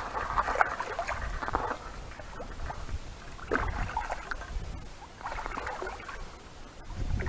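A large hooked carp splashing and thrashing at the water's surface beside a landing net, in about three bursts, as it fights against being netted.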